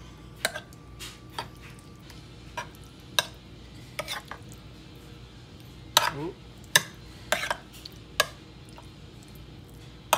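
Metal spoon clinking and scraping against a metal muffin tin as chicken pot pie filling is spooned into its cups: sharp, irregular clinks roughly once a second.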